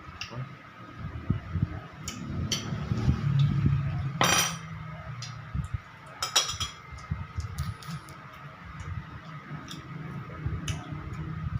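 Metal utensils clinking and scraping against a plate during eating, with scattered light clicks and two louder ringing clinks about four and six seconds in.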